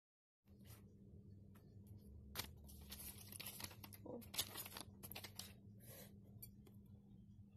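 Faint paper rustling and tearing in short scratchy bursts, over a steady low hum.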